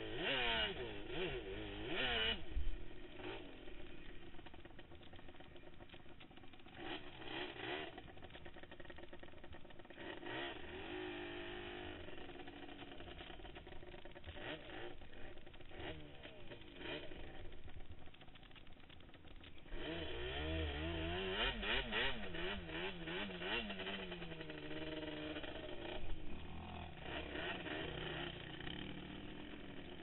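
Quad (ATV) engine heard from the rider's seat while riding over sand, revving up and down with the throttle, with hard bursts of revving at the start and again about two-thirds of the way through.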